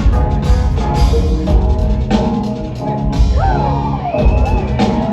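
A live rock band plays an instrumental groove with a steady drum kit and bass, without vocals. A few high sliding tones come in partway through.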